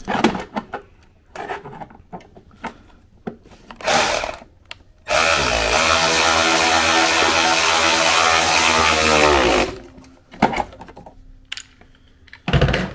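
Cordless power tool tightening the V-band clamp on a turbo wastegate. A short blip about four seconds in, then the motor spins up, runs steadily for about four and a half seconds and winds down. Light clicks and knocks of metal parts being handled come before and after.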